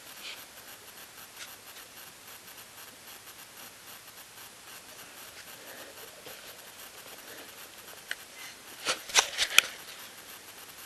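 Quiet outdoor background hiss, then a short burst of sharp clicking and rustling close to the microphone about eight to nine and a half seconds in: handling noise on the camera.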